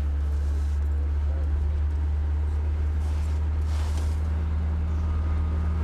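Steady low drone of a van driving, heard from inside its passenger compartment.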